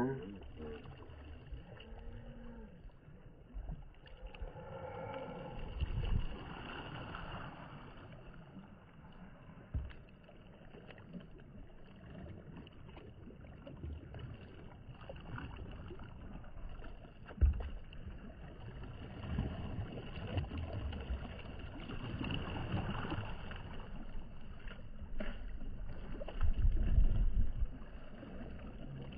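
Paddle strokes dipping and splashing, and lake water lapping against a paddle board as it moves through choppy water, with short low thumps now and then.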